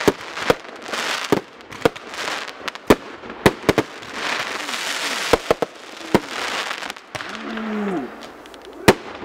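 Aerial fireworks bursting overhead: a string of sharp, irregular bangs, with a spell of crackling from crackle-star effects in the middle.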